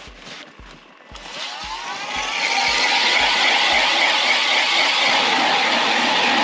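Gas-powered ice auger's engine revving up about a second in, then running steadily at full throttle as the spiral bit bores through the lake ice.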